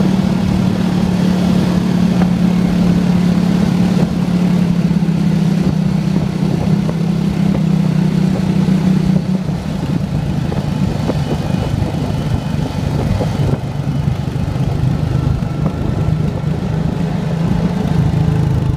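A vehicle engine running at a steady cruising speed while riding on a paved road, with wind and road noise. The engine note holds steady and eases a little about halfway through.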